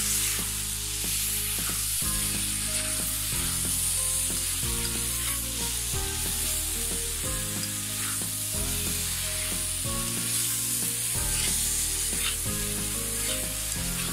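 Sweet potato pieces in spiced oil sizzling in a metal pan while being stirred and turned with a spatula, with scrapes of the spatula against the pan. Background music with steady chords that change about every second or so plays under it.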